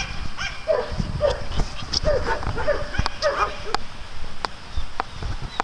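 Dogs barking and yipping in play: a quick run of short yelps over the first three and a half seconds, then a few scattered sharp taps.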